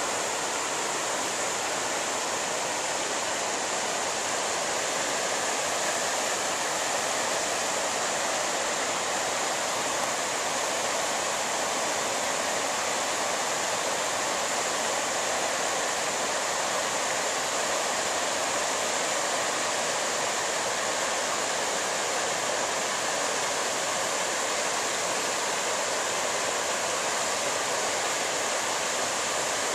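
Rapids of a rocky river rushing over boulders: a steady, even rush of water.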